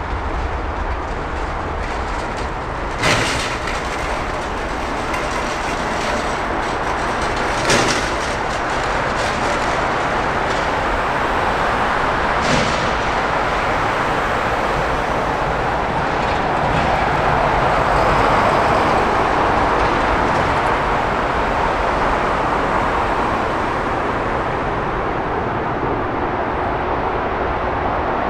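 Jet airliner engines, a steady roar that swells to its loudest about two-thirds of the way through and eases slightly near the end. Three short sharp knocks sound at about three, eight and twelve seconds in.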